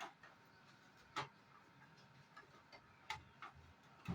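A few faint, scattered clicks and taps of a hard disk and its metal drive stand being handled and fitted into a PC cabinet.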